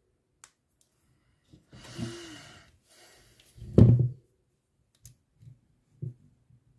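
Small workbench handling sounds: a breathy rustle about two seconds in, a single knock a little before four seconds, and a few faint clicks.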